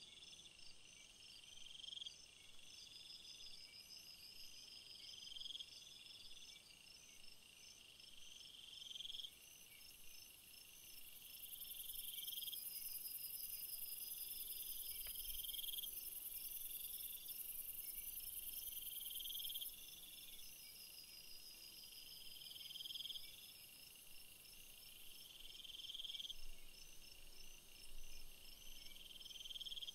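Faint chorus of crickets chirping, with a high-pitched phrase repeating about every two seconds over a faster trill. A higher, steady hiss swells in about a third of the way through and drops back about two thirds of the way through.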